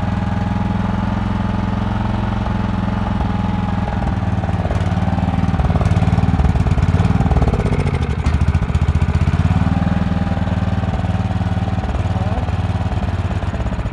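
Portable generator's 15 hp Briggs & Stratton engine running steadily. It is louder for a few seconds in the middle, where its pitch briefly wavers.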